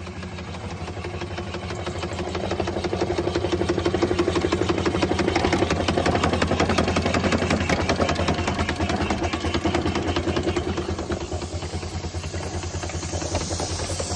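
Model live-steam traction engine running fast, its exhaust beating in a rapid, even rhythm that builds over the first few seconds and eases off near the end.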